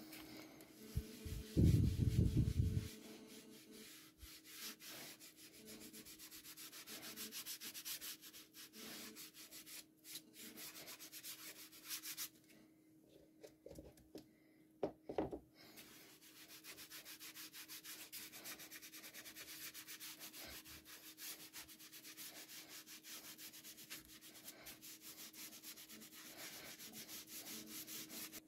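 Faint, steady rubbing on wood, made up of many fine rapid strokes. A short burst of loud knocks and clatter comes about two seconds in, and a single sharp click about halfway through.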